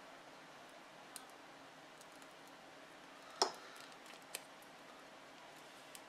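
A few sharp plastic clicks from nylon wire ties being worked through and around mated Anderson Powerpole connectors to lock them together. The loudest click comes about three and a half seconds in, a smaller one about a second later, and a faint one about a second in.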